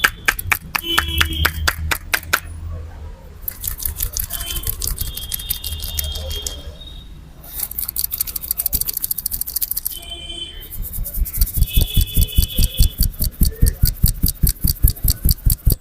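Rapid percussive head-massage strokes: quick runs of hand slaps and taps, which grow heavier and louder about two-thirds of the way in, at roughly five strokes a second.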